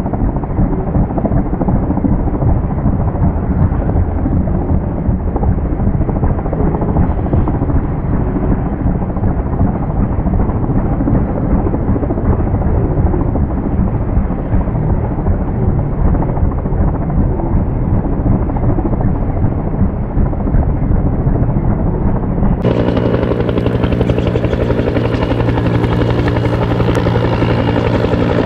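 Bell 205 (Huey) helicopter hovering low over water while its long-line bucket fills, the rotor chopping steadily. About 23 seconds in the sound cuts to the helicopter flying overhead: a steadier drone with a clear high turbine whine.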